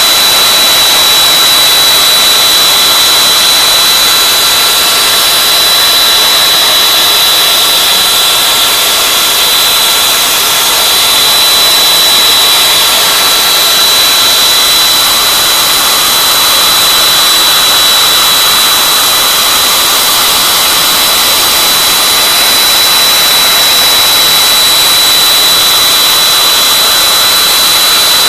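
CNC router spindle running at speed while its ball-end bit mills a sphere out of foam. It is a loud, steady high-pitched whine over a rushing hiss, with a second, lower tone that fades out about halfway through.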